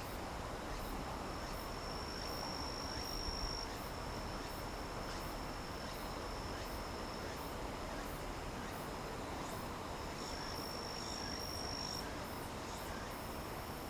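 Crickets trilling in a steady high-pitched drone that swells louder twice for about two seconds. Faint, even ticks sound higher up about twice a second, over a steady low background hiss.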